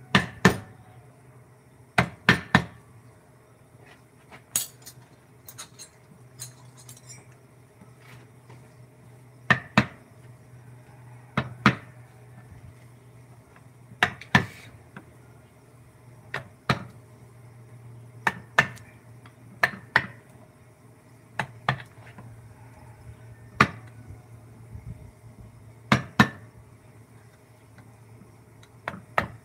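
Mallet striking a wood-carving chisel: sharp knocks, mostly two in quick succession, repeated every two to three seconds over a low steady hum.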